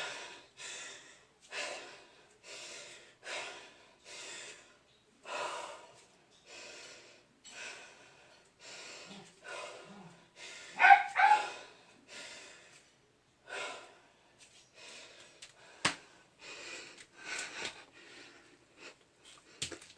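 A man breathing hard after a set of burpees: steady heavy panting, a breath a little under every second, with a louder voiced gasp about halfway through. Two sharp clicks near the end.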